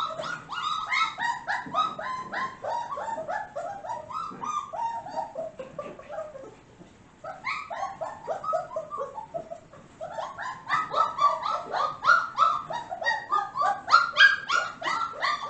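A four-to-five-week-old puppy yipping and whining in a rapid string of short cries, several a second, each dropping in pitch. It pauses briefly about six and a half seconds in and again around ten seconds, then carries on louder toward the end.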